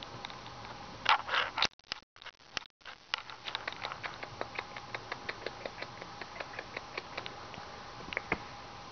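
Kittens playing with a feather wand toy on a fleece blanket: a brief loud rustle about a second in, then a run of quick light clicks and taps, several a second, with a couple of sharper clicks near the end.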